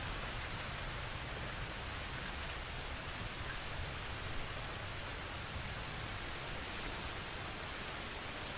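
Steady rainfall, an even continuous hiss with no distinct thunderclap.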